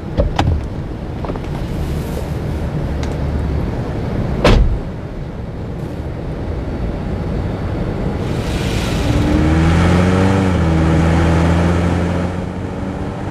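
A car door shuts with a sharp thud about four and a half seconds in. Then the car's engine runs as it pulls away, its pitch rising and falling before levelling off near the end.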